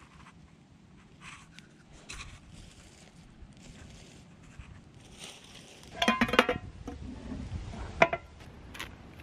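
Faint rustling, then about six seconds in a loud clatter of metal cookware knocking together with a brief ringing, and one more sharp metal clank near the end as a pan is set down.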